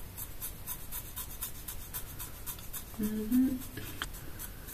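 Disposable razor scraping over eyebrow hair in quick, short strokes, several a second. About three seconds in comes a brief vocal hum.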